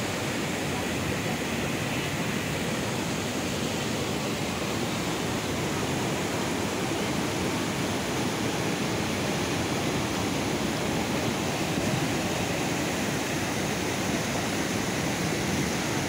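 Muddy floodwater pouring over rock ledges in a waterfall: a steady rush of churning water.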